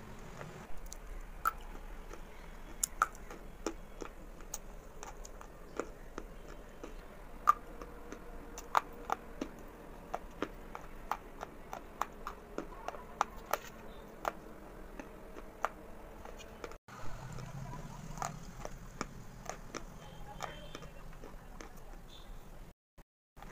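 Sticks of school chalk being bitten and chewed close to the microphone: sharp, irregular crunches and snaps, several a second.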